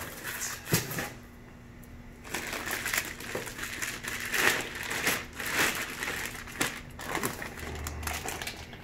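Clear plastic bags crinkling and rustling as a large plastic liner bag and the bagged fish inside a styrofoam shipping box are handled and pulled up. It eases off briefly about a second in, then goes on as dense, uneven crackling.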